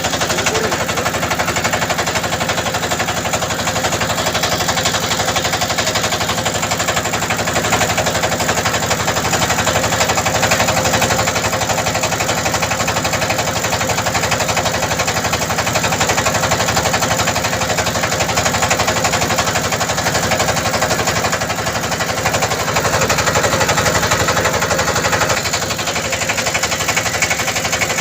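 Motor boat's engine running steadily, a loud, fast, even chugging of rapid beats.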